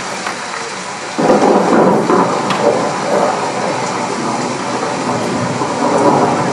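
Thunderstorm sound effect: a steady hiss of rain, with a rumble of thunder rolling in about a second in and swelling again near the end.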